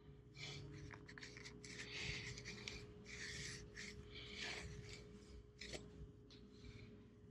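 Faint rubbing and scraping: a run of short, irregular strokes starting about half a second in and thinning out near the end, over a steady faint hum.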